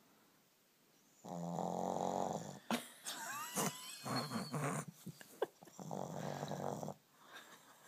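Shih Tzu dog snoring in its sleep: loud rasping snores and snorts start about a second in and run for several seconds, with a few short high squeaks in the middle, then die down near the end.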